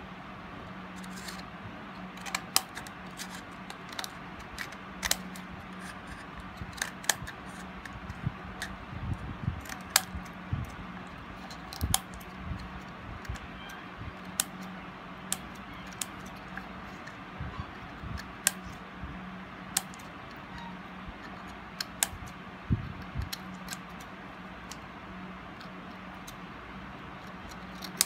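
Scissors snipping through the wall of a disposable cup in short, irregular cuts, each a sharp click, over a steady low hum.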